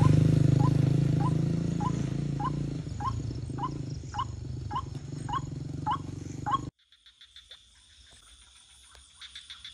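White-breasted waterhen call: a low grunting roar that fades, with a run of short rising 'kwak' notes, nearly two a second, growing louder. About seven seconds in it cuts off abruptly, leaving faint crickets chirring.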